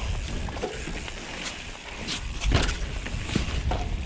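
Mountain bike ridden over rough, rooty dirt singletrack: steady rumble of tyres and ride noise, with sharp knocks and rattles as the wheels hit roots, the loudest about two and a half seconds in.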